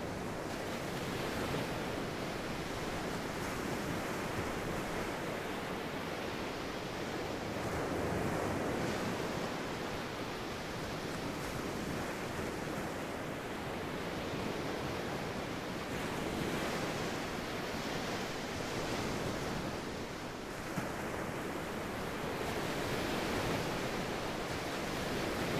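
Ocean waves washing steadily, swelling and ebbing slowly every several seconds.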